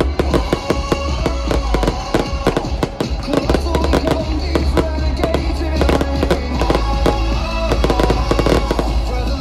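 Fireworks bursting and crackling in rapid, dense succession over loud pop-rock music with a heavy bass.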